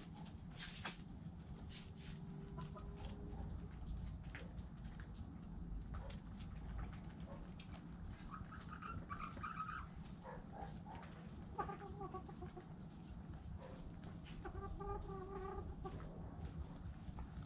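Hens clucking, in runs of calls about halfway through and again near the end, over frequent light clicks and a steady low rumble.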